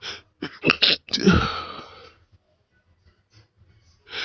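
A person sneezing from snuffed chhikni sneezing powder: a few quick catching breaths, then one loud sneeze about a second in. A sharp breath in near the end.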